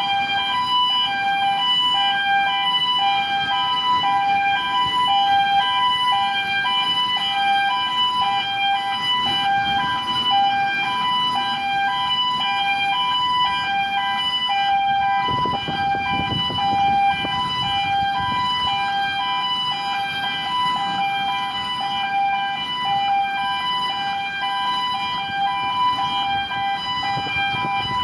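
Gantry crane's two-tone warning alarm sounding, alternating a high and a low tone about once a second, the signal that the crane is operating. A low machinery rumble runs underneath and swells briefly about halfway through.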